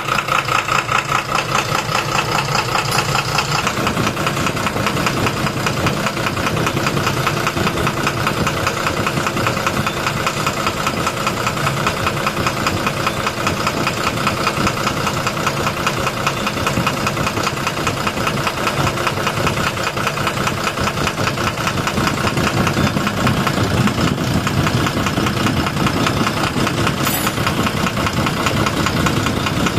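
12-M FE car engine idling with a fast, even knocking, the engine-knock fault that is being diagnosed.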